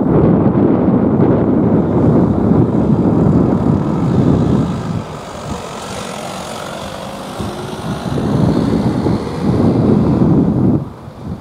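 Gusts of wind buffeting the camera microphone, a heavy low rumble that eases off in the middle, comes back, and cuts off suddenly near the end.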